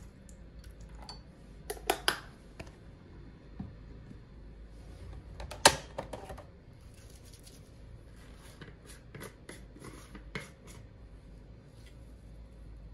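Scattered light clicks and knocks of small hard objects being handled and set down. There are two close knocks about two seconds in, a sharper, louder knock just before six seconds, and a run of small ticks after that.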